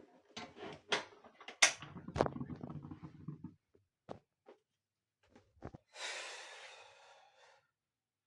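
Kitchen utensils knocking against a pot a few times with some clatter, then a short hissing scrape that fades out, as the finished ugali is handled.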